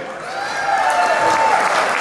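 Audience applauding, swelling after a brief lull, with one long held voice call rising slightly in pitch over it for about the first second and a half.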